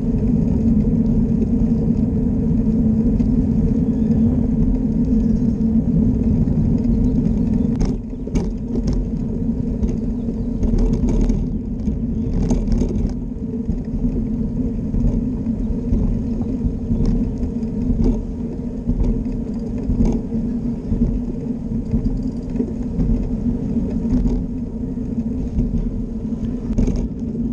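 Steady hum of a small electric motor as the vehicle rides along a paved path, over a low rumble from the tyres and wind. The sound drops a little about eight seconds in, and there are a few short clicks and rattles from then until about thirteen seconds.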